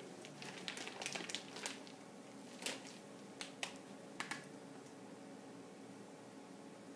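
Faint clicks and crinkles of a plastic piping bag being squeezed as frosting is piped onto cupcakes, most of them in the first couple of seconds and a few more up to about four seconds in, over a steady low hum.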